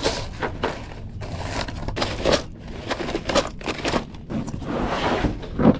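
Rummaging through a soft tackle bag: plastic tackle boxes knocking and a zip-top plastic bag of jigs crinkling, in irregular rustles and clicks.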